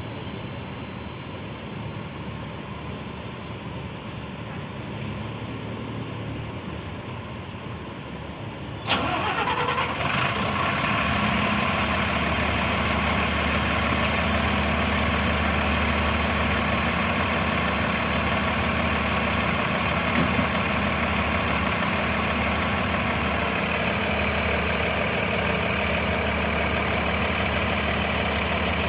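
A bus's diesel engine starting about nine seconds in, catching abruptly, then idling steadily.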